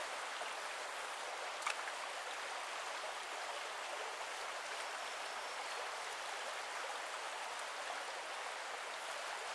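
Small forest brook running steadily, a soft even rush of water, with one faint click about a second and a half in.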